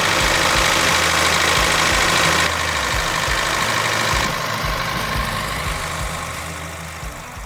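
Yanmar SV05 mini excavator's diesel engine running steadily under a loud hiss. The hiss drops twice, and the whole sound fades away near the end.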